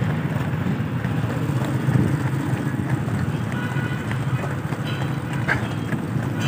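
Steady rumble of a moving motor vehicle with road noise. Faint steady high tones join about halfway through.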